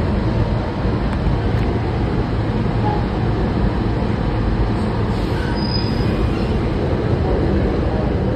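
Subway train running through a tunnel: a steady, loud rumble of the car on the rails, heard from inside the car.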